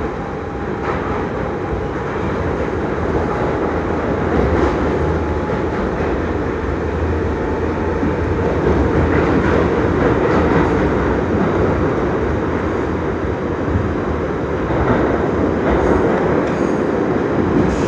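R62A subway car heard from inside, running steadily along the track: a continuous rumble of wheels on rail with scattered clicks over rail joints. A faint steady whine near the start fades out within the first few seconds.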